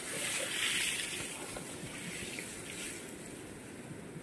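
Rustling and scraping of cut date palm fronds dragged over dry leaves and dirt, loudest about a second in and then fading, over a steady hiss.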